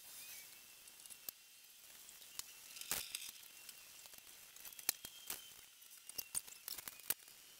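Faint scattered clicks and rustling of objects being handled, a few louder clicks about three seconds in and toward the end.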